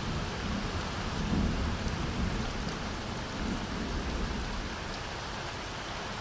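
Steady rain falling on and around a gazebo canopy, an even hiss, with low rumbles that swell and fade through the first four seconds or so and then settle.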